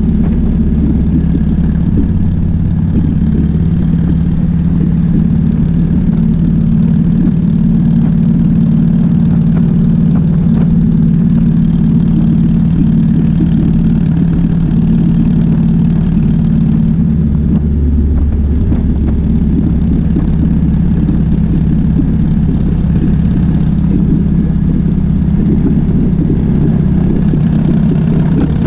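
2005 Harley-Davidson Softail Springer Classic's Twin Cam 88B V-twin engine running steadily under way, with a brief change in its note about two-thirds of the way through.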